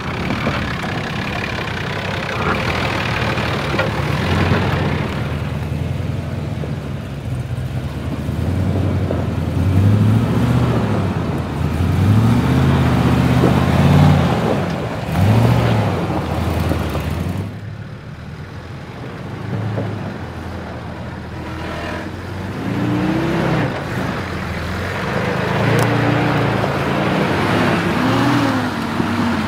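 Nissan GQ Patrol four-wheel drives' engines revving up and down in repeated surges under load, crawling up a steep, loose, rocky hill. The engine note drops back to a lower, quieter run a little past halfway.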